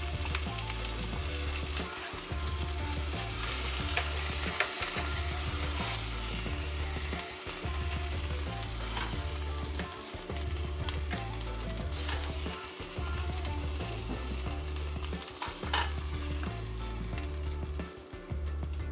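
Chicken breast pieces sizzling in a hot nonstick skillet just taken off the heat, with a few sharp clinks as a fork lifts pieces out.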